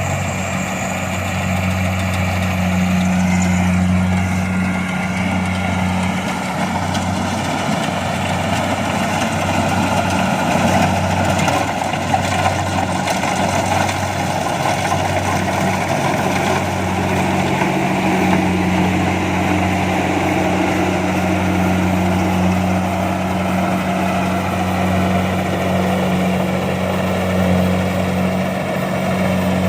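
Kubota DC-70 Plus combine harvester's diesel engine running steadily, a loud low hum with a dense whirring noise of the machine over it, swelling a little now and then.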